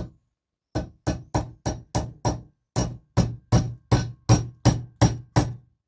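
A hammer striking to drive the wedge into the new handle in the eye of a sledgehammer head: one blow, then a steady run of about fourteen sharp, ringing blows, roughly three a second, with a brief pause about halfway.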